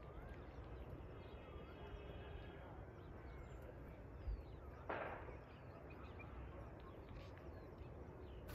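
Birds chirping and whistling in short, scattered calls over a low steady background rumble, with one brief harsh noise about five seconds in.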